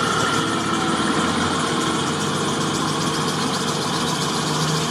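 An off-road SUV's engine running steadily as it drives slowly through a shallow river ford, with the hiss and slosh of water around it. The engine note swells a little near the end.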